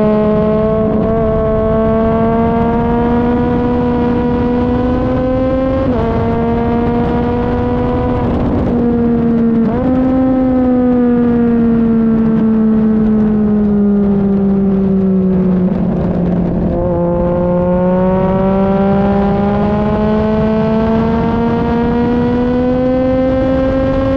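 Sport motorcycle engine heard from a camera on the bike's tail, at speed on a racetrack with wind rush. The revs climb and drop with upshifts about 6 and 10 seconds in, fall steadily as the bike slows, then climb again, with another upshift right at the end.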